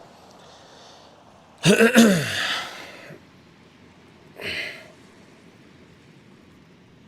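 A man lets out a loud sigh, his voice rising and then falling in pitch, followed a couple of seconds later by a short breathy noise. Faint steady wind and surf hiss lie underneath.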